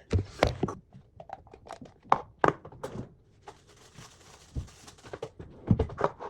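Kitchen food-preparation handling: a string of irregular clicks and knocks from utensils and containers, with a soft rustle for about a second and a half around the middle.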